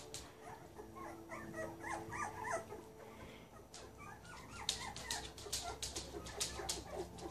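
Puppy whimpering in many short, high squeaks and yips, scattered and irregular, with a run of light clicks and rustles in the second half.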